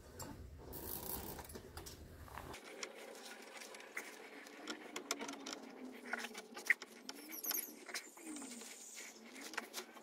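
Quiet rustling, light clicks and a few short squeaks as hands shift and line up a replacement car radiator, held up on cable ties, under the car.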